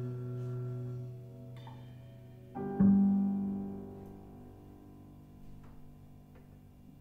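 A low bowed double bass note, held steadily, ends about a second in; then a low piano chord is struck sharply about three seconds in and left to ring, slowly dying away toward quiet.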